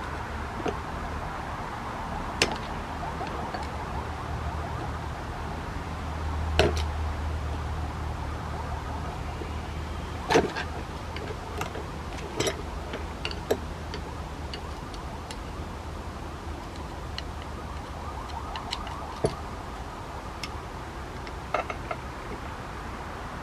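Metal parts of a vintage carpenter's vise knocking and clinking as it is handled, a dozen or so scattered sharp knocks over a steady wavering hum.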